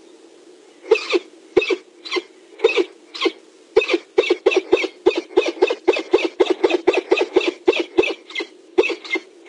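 Peregrine falcon cackling: a run of short, repeated kek calls that start about a second in and quicken to about four a second.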